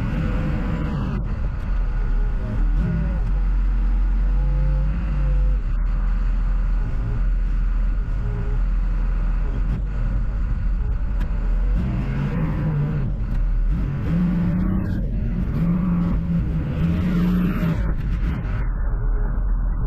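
Heavy vehicle engine running, its revs rising and falling.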